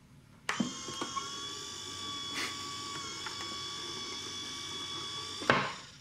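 Claude Shannon's 'ultimate machine', the box that switches itself off: a switch clicks about half a second in and a small electric motor whirs steadily, with a few light mechanical clicks, while the lid opens and the mechanism flips the switch back off. The lid snaps shut and the motor stops with a sharp click about five and a half seconds in.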